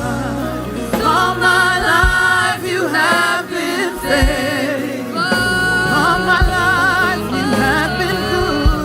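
Live worship music: a band playing with wavering sung vocal lines over sustained bass notes and a few drum hits.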